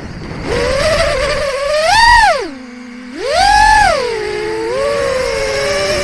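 4-inch FPV quadcopter's 2203 3450kv brushless motors and Gemfan 4052 props whining, heard from the onboard camera. The pitch swings with the throttle during the maneuver: it rises, drops to a low hum for about half a second near the middle, climbs sharply again, then settles into a steady whine.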